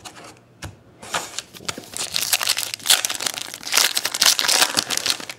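Foil wrapper of a 2011 Panini Prestige football card pack crinkling as hands tear it open: dense crinkling from about a second in, lasting about four seconds.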